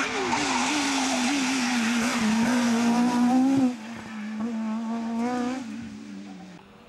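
Rally car engines at high revs on a special stage, the note rising and dipping with throttle and gear changes. About three and a half seconds in the sound breaks off abruptly, then a rally car accelerates away with the pitch climbing through the gears and fades out.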